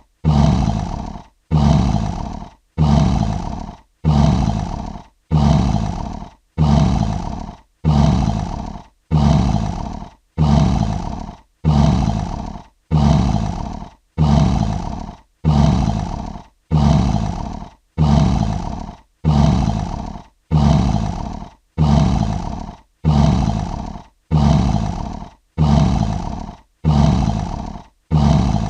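Lion roar sound effect: one short roar about a second long, repeated in an even loop about once every 1.3 seconds, each starting sharply and fading out.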